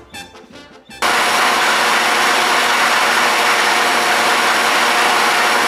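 Brass music cuts off about a second in, and a loud, steady hiss of compressed air rushing through a siphon-cup paint spray gun takes over.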